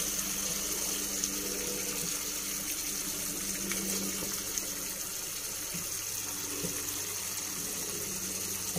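Tofu and minced-pork sauce simmering in a frying pan on a gas stove: a steady, even sizzling hiss, with a faint low hum under it.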